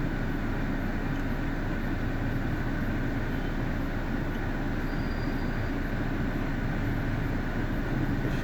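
Mercedes-Benz W211 E200 engine running smoothly at idle with the air conditioning on, a steady noise without breaks. The misfire is cured after its water-damaged spark plugs and coils were cleaned.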